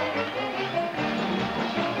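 Philadelphia Mummers string band playing live, with banjos, saxophones and accordions sounding together in one tune.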